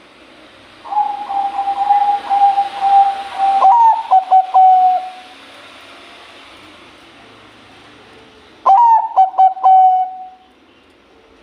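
Zebra dove (Bangkok-type perkutut) cooing in two song phrases. Each is a long rolling coo broken by quick clipped notes: the first starts about a second in, the second comes near the end. A steady hiss behind the first phrase cuts off suddenly partway through.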